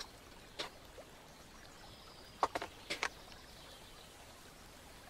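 Light clicks and taps of small laser-cut MDF pieces being handled and pressed together into a miniature kitchen model: a tap or two in the first second, then a quick cluster of about five clicks around two and a half to three seconds in.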